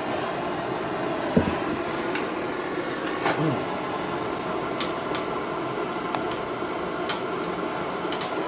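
Gas blowtorch burning with a steady rushing roar, its flame melting the end of a plastic hose piece closed.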